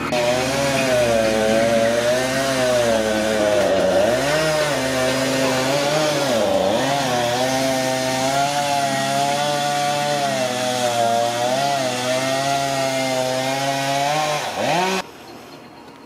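Chainsaw engine running at high revs, its pitch repeatedly dipping and rising as the throttle changes; it cuts off abruptly about a second before the end.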